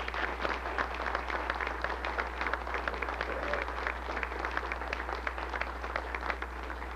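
Audience applauding: many hands clapping together, over a steady low hum.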